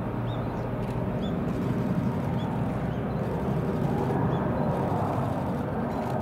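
Distant jet engine noise from the Mitsubishi X-2 Shinshin and its chase fighter flying overhead: a steady rumble, slowly growing louder. Faint short high chirps come about once a second.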